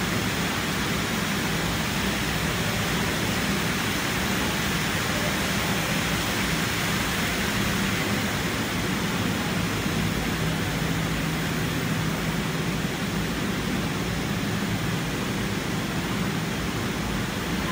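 Rows of silk spinning machines running: a steady, dense whirring noise with a low hum underneath, unchanging throughout.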